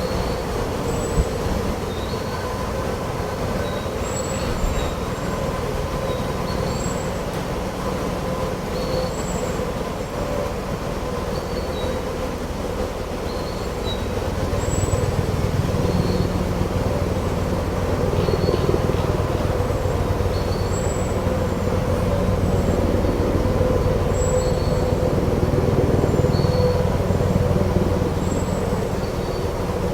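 A bird repeating a short high chirp every second or two over a steady low rumble, which grows louder about halfway through.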